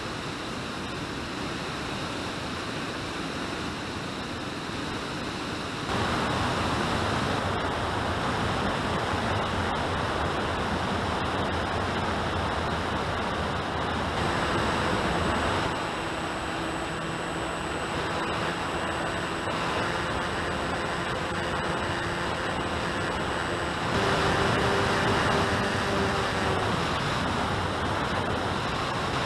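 Steady rush of airflow over the onboard camera's microphone on an FX-61 flying wing in flight, growing louder about six seconds in. In the second half a faint motor hum sits under the rush and briefly rises in pitch and loudness near the end.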